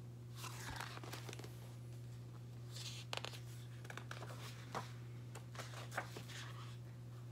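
Faint rustling and soft taps of a large picture book's paper pages being handled and turned, over a steady low hum.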